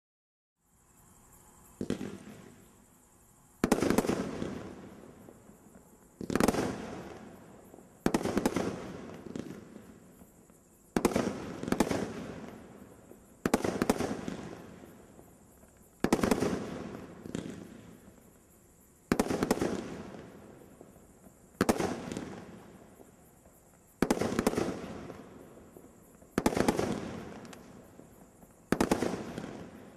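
Brothers 'Old Ironsides' 30-shot 350 g fireworks cake firing its shots of flaming comets one at a time, about one every two and a half seconds. Each shot is a sharp report that fades away over about two seconds. The first few seconds hold only a faint sound and a small pop before the regular shots begin.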